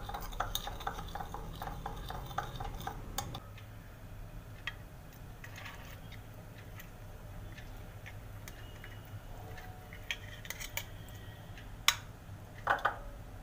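Steel spoon stirring a wet spice paste in a glass bowl, clinking against the glass about two to three times a second for the first three seconds or so. After that come only scattered light clinks, then a single sharp clink near the end as a steel steamer plate is brought to the bowl.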